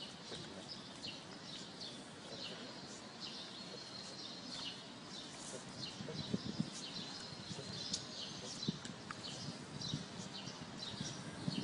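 Small birds chirping over and over, with a few short whistled notes. Soft low knocks and rustling come in from about halfway through.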